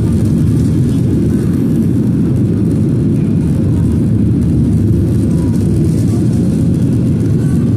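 Steady low rumble inside the cabin of a Boeing 737-800 in flight: its CFM56-7B jet engines and the rush of air over the fuselage during the climb-out after takeoff.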